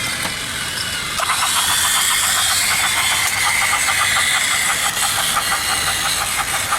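Battery-powered Trackmaster toy train engines whirring along plastic track at top speed. About a second in, a rapid, even clicking joins the whir and keeps on.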